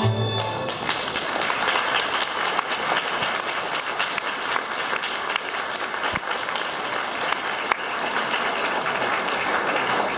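The last held chord of violins and double bass breaks off about half a second in, and an audience applauds steadily for the rest.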